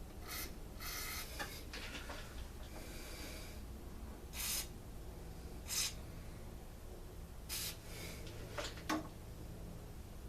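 Short scrapes and clicks, scattered irregularly, from hand tools and parts being handled during the teardown of a two-stroke backpack blower engine, over a steady low hum.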